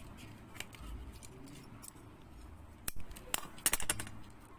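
Scissors snipping off leftover thread ends on a beaded piece: a few sharp clicks, most of them between about three and four seconds in.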